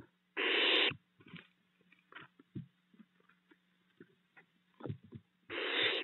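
Barn owl owlets hissing: two harsh, noisy hisses of about half a second each, one just after the start and one at the end. Between them come soft scrapes and knocks of the owlets shuffling in the nest box, over a faint steady low hum.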